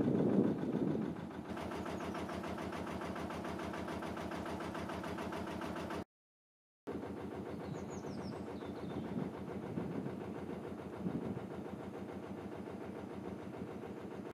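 Narrowboat diesel engine running steadily under way with a fast, even beat, and a louder rush in the first second. The sound cuts out completely for under a second about six seconds in, and a few faint high chirps come soon after.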